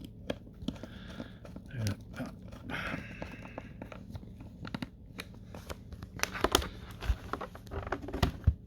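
Hard plastic clicking, knocking and rattling as the parts of a Samsung fridge's home-bar door damper are worked back into place by hand, with a cluster of sharper clicks near the end.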